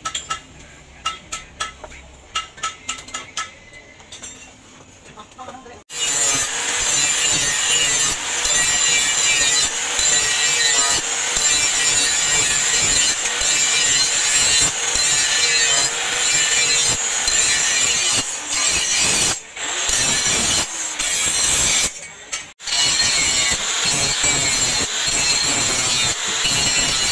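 A run of sharp knocks for about six seconds, then a handheld angle grinder starts suddenly and grinds the steel blade of a rusty meat cleaver: a steady high whine under harsh grinding noise, cutting out briefly twice in the later part.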